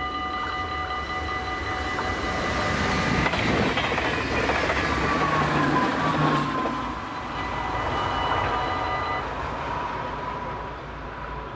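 An NS intercity electric train passes through a level crossing at speed, its rumble building to a peak about four to six seconds in and then fading. Over it, the crossing's warning bells ring a steady tone that stops about nine seconds in.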